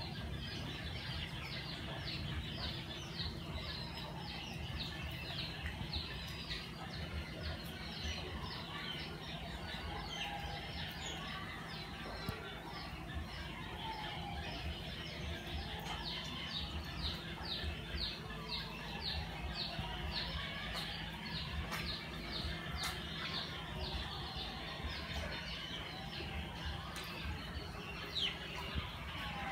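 Birds chirping in the background: long runs of short, quick, high chirps, with slower rising-and-falling calls lower down. A steady low hum runs underneath.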